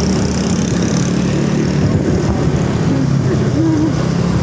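Steady engine and road rumble of a moving vehicle, with a short voice sound about three and a half seconds in.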